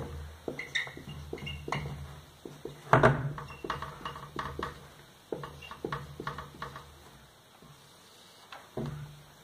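Marker pen writing on a whiteboard: a run of short taps and squeaks as letters and plus signs are written, with a louder knock about three seconds in, then a line drawn near the end. A low steady hum runs underneath and stops about seven seconds in.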